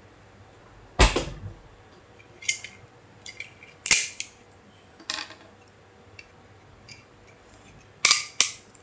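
Support material being snapped off a 3D-printed plastic joint: a series of sharp cracks, a loud one about a second in, several more spread out, and two in quick succession near the end.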